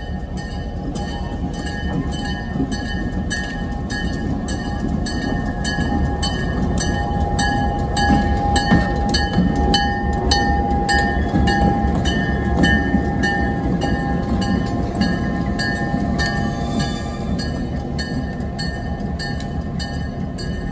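EMD SD7 diesel-electric locomotive, its 16-cylinder two-stroke engine running as it rolls slowly past, loudest about halfway through as it goes by close, with a regular metallic clanging about twice a second.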